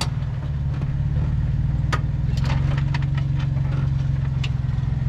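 Jeep Wrangler JK Unlimited engine running at low revs while the Jeep is hung up on a rock ledge, the revs rising slightly a little past two seconds in. Several sharp clicks and knocks sound over it.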